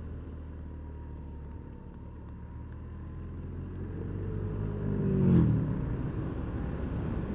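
BMW R1200 R boxer-twin engine running steadily while riding, with wind on the helmet microphone. About five seconds in another vehicle passes, loudest as it goes by, its pitch dropping as it recedes.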